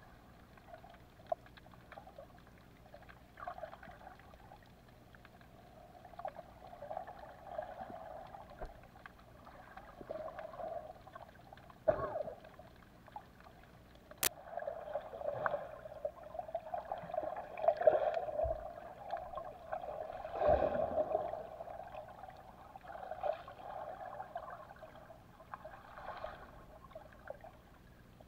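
Muffled underwater water sound picked up by a submerged camera while snorkelling: sloshing and bubbling that swells and fades every few seconds, with scattered small clicks and one sharp click about fourteen seconds in.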